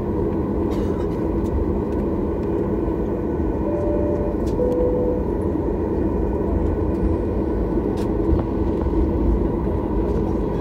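Steady engine and rolling rumble of a Boeing 737 heard from inside the cabin as the jet moves on the ground with flaps set. About four seconds in, a short two-note chime sounds, falling in pitch.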